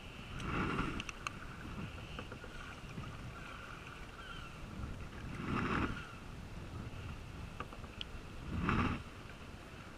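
Kayak paddle strokes in calm sea water: three swishing splashes a few seconds apart, the last the loudest, with faint water sounds along the hull between them.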